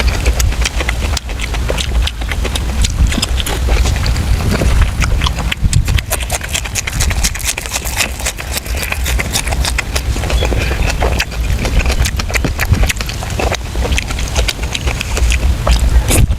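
Close-miked chewing and mouth smacking while eating braised pork intestines: a fast, uneven run of clicks over a steady low rumble.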